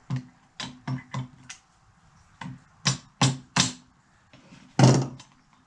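Metal clicks of channel-lock pliers working the legs of a steel cotter pin, bending them apart. About ten sharp, short clicks come in uneven clusters, the loudest a little before the end.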